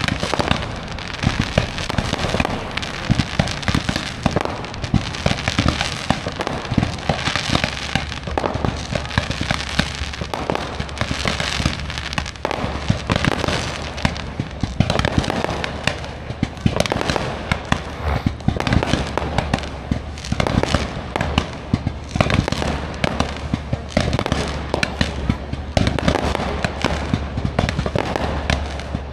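Aerial fireworks bursting in a rapid, unbroken string of bangs, several a second, with crackling between them.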